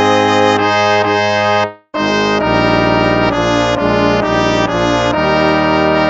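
Instrumental hymn music with a brass sound, moving in held chords. It drops out for a moment about two seconds in, then goes on.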